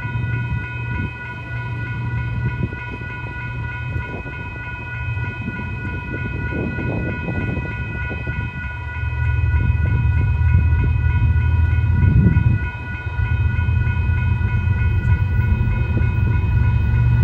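Railroad crossing bell ringing steadily. Under it, the low rumble of approaching Union Pacific diesel locomotives grows louder from about ten seconds in.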